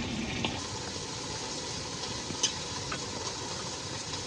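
Pork sizzling in a mess tin as its braising sauce boils almost dry, with a few light clicks of a utensil against the tin, the sharpest about halfway through.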